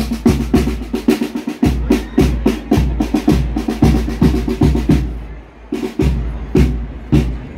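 Marching band drums playing: rapid snare-drum strikes and rolls over bass drum beats, easing off briefly about five seconds in before picking up again.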